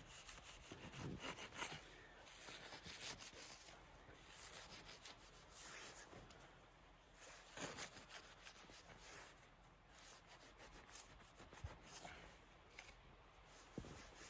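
Faint, irregular scraping and crunching of snow being dug out, a stroke every second or so.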